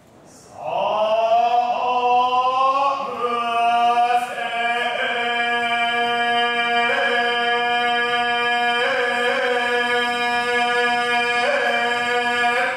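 Buddhist shōmyō chant sung by a single monk: one long held note that slides up slightly as it begins, then holds steady, its vowel shifting a few times.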